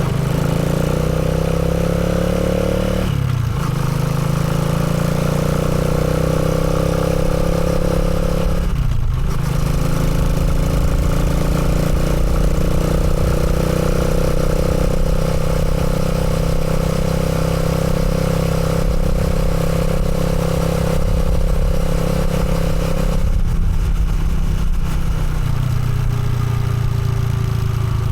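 Motorcycle engine running under way, its note climbing slowly, with brief drops in pitch about 3 and 9 seconds in, then easing off near the end to a lower, steadier note.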